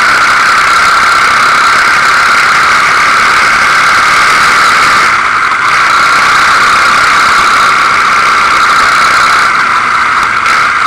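Quad bike engine running hard at steady revs, a loud constant whine, easing briefly about halfway through.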